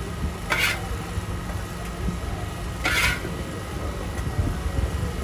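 Metal spatula scraping across a hot iron griddle twice, about half a second in and again about three seconds in, over a steady low rumble.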